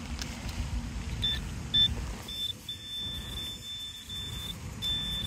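Handheld metal-detector pinpointer probing in sand and beeping: a few separate short beeps, then a steady high tone held for about two seconds, broken briefly, then again near the end. The tone means it is right over a buried metal target. A low rumble runs underneath.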